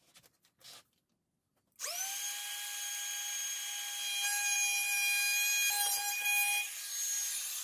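Cordless compact router starting up about two seconds in, quickly rising to a steady high whine. It gets louder and rougher in the middle as the bit cuts along the hardwood edge, then runs evenly again near the end.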